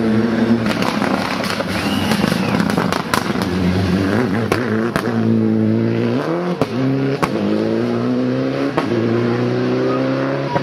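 Rally car engine at high revs as the car brakes for a roundabout and then accelerates away, climbing in pitch through several quick upshifts, with sharp pops and crackles from the exhaust.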